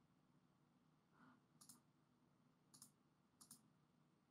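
Near silence with faint computer mouse clicks: three quick pairs of clicks in the second half, each a press and release in fast succession.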